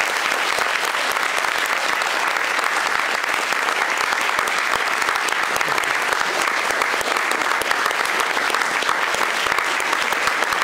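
Audience applauding steadily, a dense, even clatter of many hands clapping at once.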